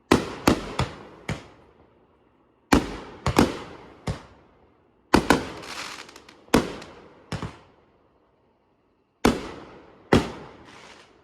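Fireworks bursting: sharp bangs in quick clusters, each fading out in a long echo. There are four volleys: four bangs at the start, three about three seconds in, five or so from about five seconds in, and two near the end.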